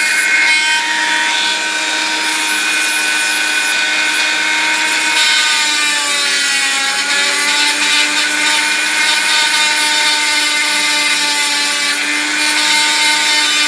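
Dremel rotary tool running at high speed, grinding down a soldered tin tail wing. Its whine sags in pitch about six seconds in as it bears into the metal, then comes back up.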